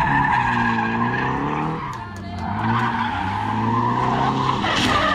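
Drift car's engine revving up and down with tires squealing as it slides, easing off briefly about two seconds in, with a short sharp burst of noise near the end.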